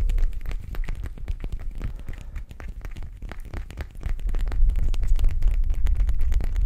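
Fingers handling a small glass-and-metal object right at the microphone, making rapid, irregular clicks and taps over a low rumble. The tapping quietens in the middle and picks up again near the end.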